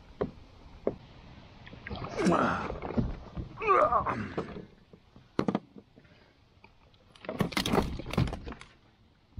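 Catfish being landed and handled in a kayak: splashing and scuffling as the fish comes out of the water about two seconds in, then a run of knocks and clicks from the fish, the plastic lip-grip and the hull near the end.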